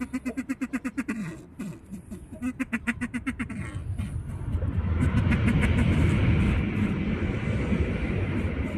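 A bird giving rapid, pulsed chattering calls that sound like laughter, twice in the first few seconds. Then a louder, steady rushing rumble swells up and slowly fades.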